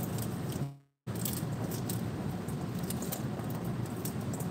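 Hands breaking apart a pomegranate and picking its seeds into a stainless steel bowl: soft crackling of the peel and faint light ticks over steady room noise. The sound cuts out briefly just before a second in.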